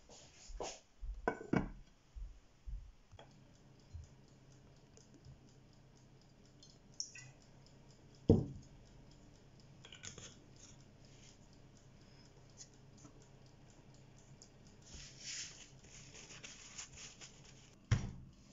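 Kitchen handling noises around a metal springform pan of dough: scattered taps, scrapes and knocks, the sharpest about eight seconds in and another near the end, over a faint steady hum.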